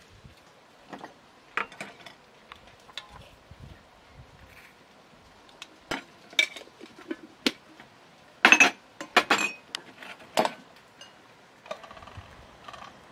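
Scattered clinks and knocks of metal and glass as a tea tin, an aluminium teapot and tea glasses are handled, with a close run of louder knocks about two-thirds of the way in.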